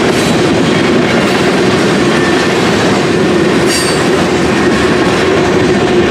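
Freight train of tank cars and a covered hopper rolling past at speed: a loud, steady rumble of steel wheels on rail with a constant low hum. A brief high-pitched wheel squeal comes a little under 4 seconds in.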